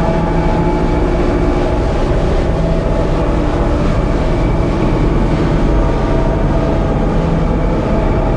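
Live experimental drone and noise music: a dense, steady wall of rumbling low noise with several held tones layered over it.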